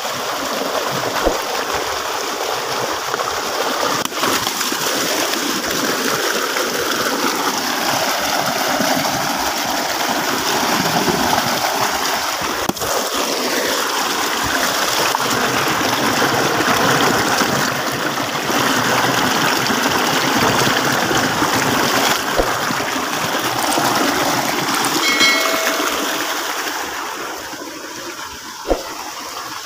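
Muddy, rain-swollen stream running fast over rocks, a steady loud rush of water. Near the end the rushing drops away and there is a single thump.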